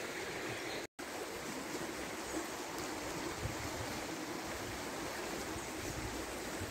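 Steady wash of a river flowing, with a brief total dropout to silence just under a second in.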